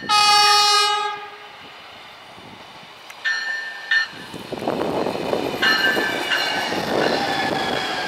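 Stadler diesel light rail railcar (DMU) sounding its horn in one loud blast of about a second, then short high-pitched signal tones around three seconds in. It then runs past close by with a rising rumble, and high tones over it that dip slightly in pitch as it goes by.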